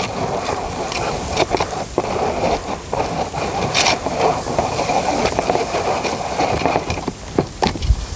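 Hands working damp fishing groundbait in a bowl, a steady rustling scrape with scattered sharp clicks. A faint steady high whine runs through the middle.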